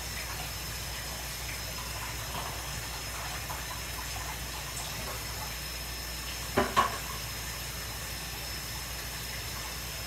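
Kitchen cleaning: a steady hiss under faint clinks of items being handled at the counter, with two sharp knocks in quick succession about six and a half seconds in.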